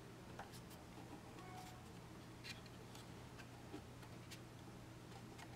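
Near silence, with a few faint, scattered clicks and light taps from hands turning a Batman cowl collectible on its display base, over a low steady hum.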